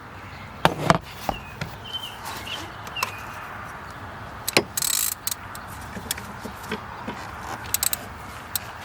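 Hand tools on a spark plug: a ratchet with a long extension and spark plug socket clicking and knocking as it is set on and worked to loosen the plug. There are scattered single clicks, a brief scrape about five seconds in, and a quick run of ratchet clicks near the end.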